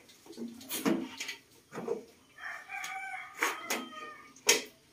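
A rooster crows once in the background, a wavering call of about a second midway. Around it come several sharp knocks and scrapes of a large aluminium pot being moved on the gas stove's grate to coat popcorn kernels in oil; the loudest knock comes near the end.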